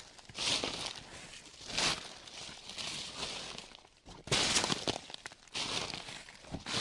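Footsteps crunching through dry fallen leaves at a slow, even walk, one crunch a little more than once a second, with a soft rustle between steps.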